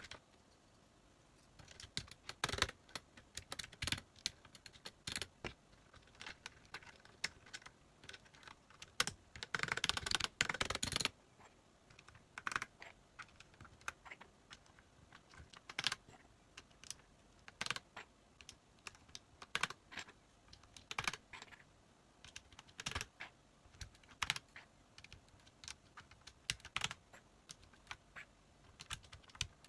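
Typing on an Ajazz mechanical keyboard fitted with cherry blossom keycaps: irregular key clicks throughout, with a quick dense run of keystrokes about nine seconds in.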